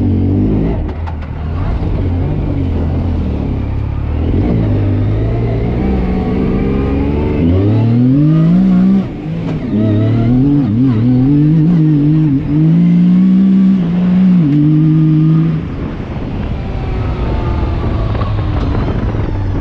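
Yamaha YXZ1000R side-by-side's three-cylinder engine, running at low revs, then revving up and down under throttle from about seven seconds in, with a couple of brief lifts. After about fifteen seconds it settles back to low revs.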